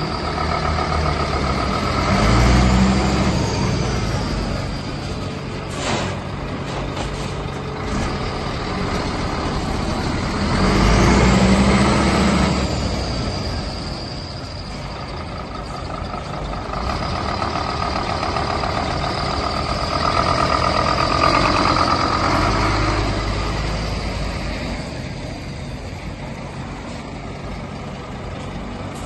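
Scania P230 lorry's diesel engine running, with engine speed swelling and falling three times; the first two swells carry a rising whistle. A short sharp sound about six seconds in.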